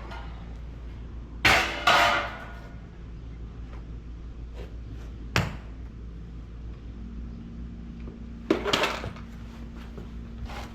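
Scattered metallic clanks and knocks from tools and hardware being handled while an electrical panel is mounted: two clanks close together about a second and a half in, a single sharp knock around the middle, and another clatter near the end.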